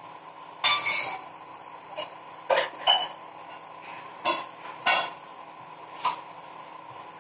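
Kitchenware clinking: about seven short, sharp metallic clinks, several coming in pairs, over a steady faint hum.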